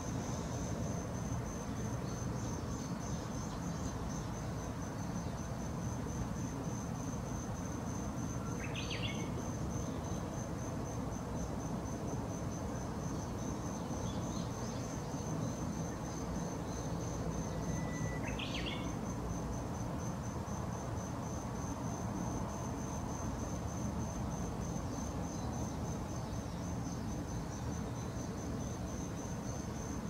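A high insect trill runs steadily, pulsing evenly, with two brief bird calls about nine and eighteen seconds in, over a low background rumble.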